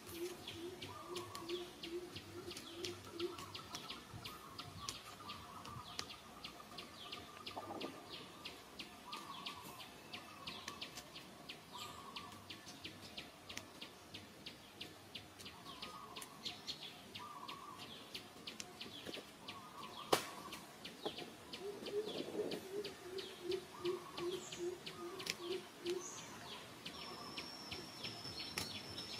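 Birds calling: dense high, rapid chirping throughout, and a low call of quickly repeated notes, about four a second, at the start and again about 22 seconds in. Near the end a steady high insect buzz comes in.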